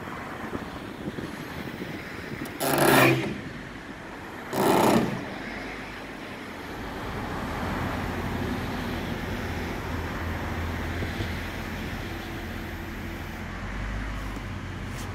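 Truck engine running steadily, driving the hydraulics of a 60-foot over-center aerial boom as it moves. Two short, loud bursts of noise come about three and five seconds in, and a steady low hum sets in after about six seconds.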